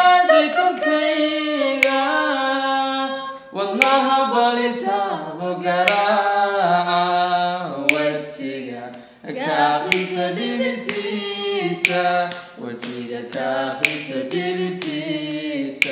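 A man and a woman singing a Somali song unaccompanied, in long held notes. A sharp click comes about every two seconds.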